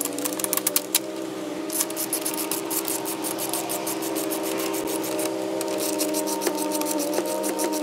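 A fast run of light metallic clicks from hand tools on the caliper bracket bolts, densest from about two to five seconds in, over a steady held background tone.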